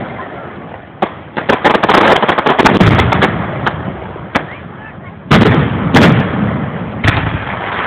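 Aerial firework shells bursting overhead: a quick run of crackling bangs from about a second in, then a few separate loud booms in the second half, each trailing off in a rumbling echo.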